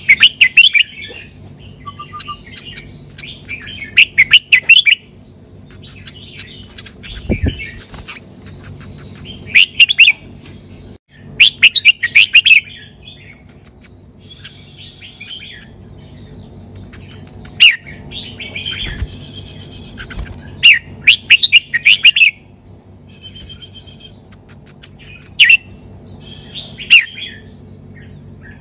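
Red-whiskered bulbul singing loud, short warbled phrases again and again with brief pauses between, in the doubled-phrase 'sai beun' song style kept by Thai bulbul fanciers.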